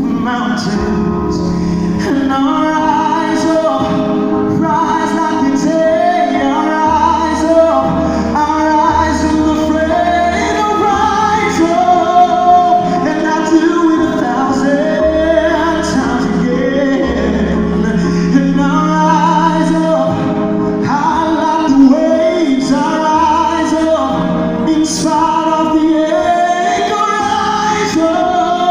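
Live music: male vocals singing a slow song with live band accompaniment, heard through a concert hall's sound system from the audience.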